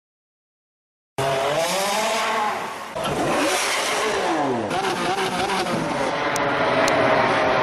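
After about a second of silence, a Koenigsegg Agera's twin-turbo V8 revving, its pitch rising and falling several times before settling into a steadier high note in the second half.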